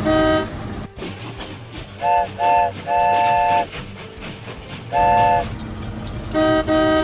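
Train horn sound effect tooting a series of blasts over a steady low rumble: short double toots, a longer blast about three seconds in, a single toot about five seconds in and a double toot near the end, in two different pitches.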